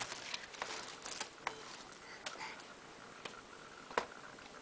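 Scattered light taps and clicks, about ten of them at an uneven pace, as a baby's hands handle a dark hard object; the sharpest click comes about four seconds in.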